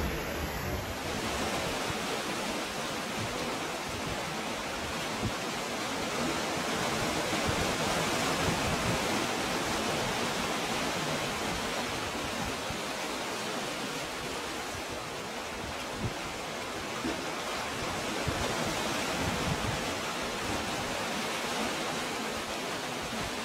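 Sea surf surging through a narrow rocky gully: a steady rush of churning water that swells and eases slowly.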